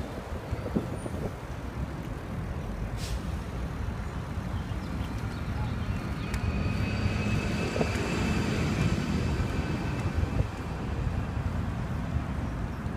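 Wind rumbling on the microphone while moving along a path, with a faint high, steady whine from about six to eleven seconds in.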